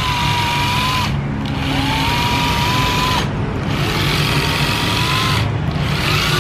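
Makita cordless driver run free by its trigger in short bursts. Each time the motor spins up in a rising whine, runs about a second and a half, then stops short on its electric brake, with a fresh pull starting near the end.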